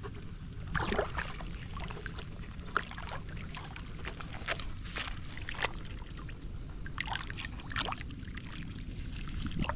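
Irregular wet splashes and squelches of water and mud as hands dig into a waterlogged crab burrow, over a steady low rumble.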